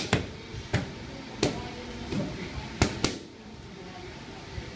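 Boxing gloves striking focus mitts: a run of sharp smacks, about six punches in the first three seconds, the last two in quick succession, then they stop.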